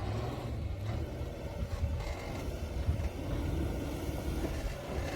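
Low, steady rumble of a vehicle driving on the road, engine and road noise.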